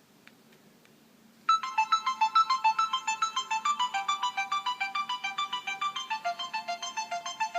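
Sony Ericsson Z750i mobile phone playing a ringtone through its small loudspeaker. After a short pause, a quick melody of bright synthesized notes starts about a second and a half in, at about eight notes a second.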